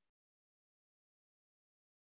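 Near silence: the sound drops out completely, a dead digital silence with no room tone.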